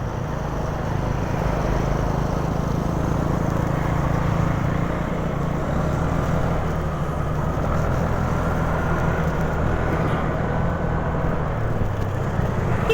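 Honda Genio scooter's single-cylinder engine running steadily under the rush of wind over the microphone while riding, with a faint whine rising slightly in pitch in the second half.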